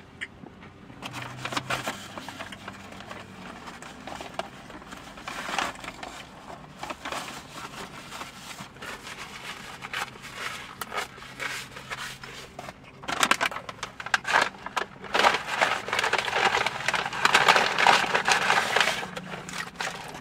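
Food packaging crinkling and rustling in irregular bursts as it is handled and opened, busiest and loudest in the last several seconds.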